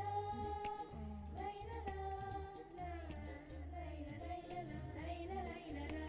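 Background music: a melody of long held notes over a bass pulse about once a second.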